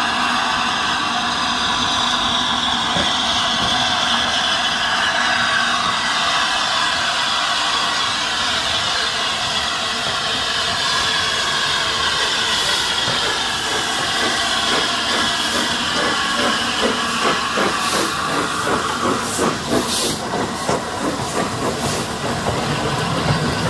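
LNER A3 Pacific steam locomotive 60103 Flying Scotsman hissing steam steadily as it approaches at low speed. As it passes close by, a rhythmic clatter of about four beats a second joins in, with a few sharp clicks near the end.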